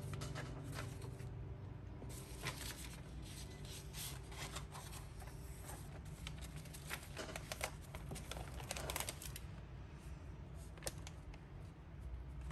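Sheets of paper rustling and tapping as they are handled and closed into a book, in quick, irregular clicks over a faint steady low hum.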